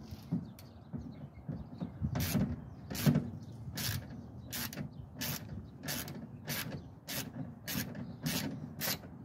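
10 mm socket ratchet clicking in short bursts on its return strokes, about one and a half a second from about two seconds in, as it tightens a power-window regulator's mounting nut.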